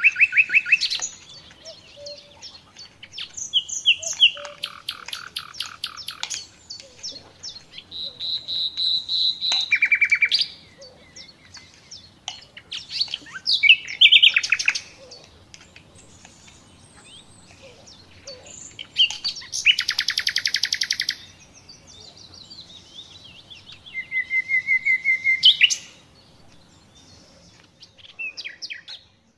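A songbird singing in phrases of fast trills and rapidly repeated whistled notes, with short pauses between phrases.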